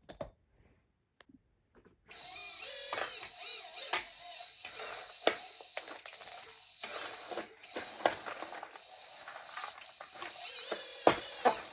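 Hydraulic pump of a 1/14 scale RC excavator whining steadily as it works the arm and bucket to scoop dirt, its pitch shifting under load, with several sharp clicks and knocks. It starts about two seconds in and cuts out briefly a few times.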